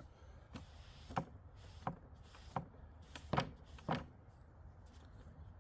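A series of about six light knocks or taps, roughly two-thirds of a second apart, stopping about four seconds in.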